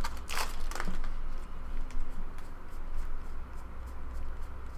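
Baseball trading cards being handled and flipped through after a foil pack is opened: a few short rustles in the first second, then light flicks and ticks, over a steady low hum.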